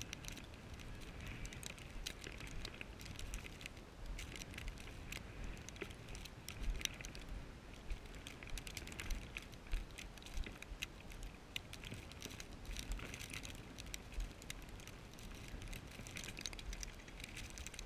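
Irregular crunching and ticking of footsteps through snow-covered dry weeds and brush, over a low rumble of wind on the microphone.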